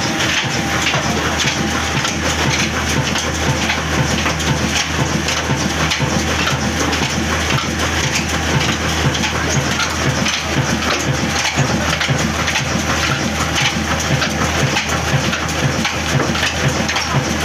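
A 26 HP Ittefaq diesel engine with a heavy flywheel running steadily and driving a flat belt to a stone grain mill, heard as an even, dense clatter and hiss over a constant low throb.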